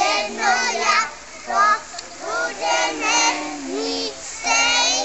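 A group of young children singing together in high voices, with held and gliding notes.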